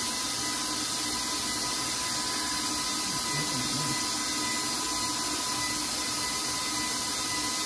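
KitchenAid stand mixer running steadily, cutting cold butter into a flour mixture until it is crumbly, with a steady motor whine.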